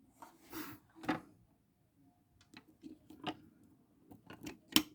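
Screwdrivers being handled: a brief rustle, then a few sharp clicks and clacks as the tools are picked up and set down, the loudest near the end.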